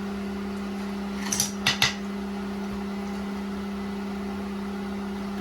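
A few quick metallic clicks and clatters, about a second and a half in, from a screwdriver and wire ring terminals being worked on the pressure switch's terminal screws, over a steady low hum.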